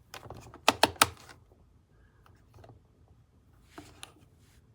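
Handling noise with three sharp clicks in quick succession about a second in, followed by scattered quieter taps and rustles.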